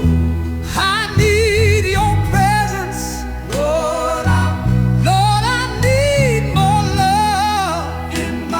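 Gospel-style song: a solo voice singing long notes with wide vibrato over sustained bass notes and instrumental backing.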